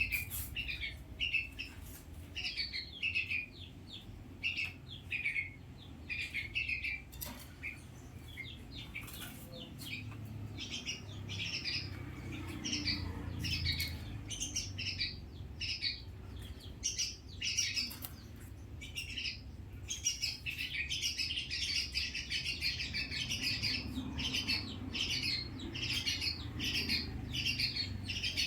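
Hill myna chirping: a long run of short, repeated high calls, about two a second, that crowd together into an almost unbroken chatter about twenty seconds in.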